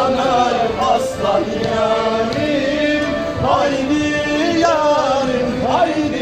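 Voices singing an Artvin folk dance song together, with the melody sliding up and down in pitch and no break.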